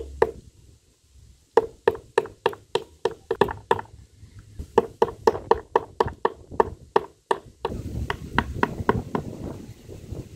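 A knife blade driven into a block of jaggery by blows of a wooden club, knocking on a wooden board about three times a second after a short pause near the start. From about eight seconds in the chopping is denser and rougher as the broken pieces are cut up.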